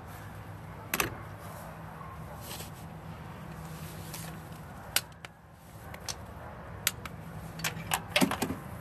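Ratchet and socket extension working a spark plug down in its well on the engine head: scattered sharp metallic clicks and knocks, a few seconds apart and then bunched together near the end, over a steady low hum.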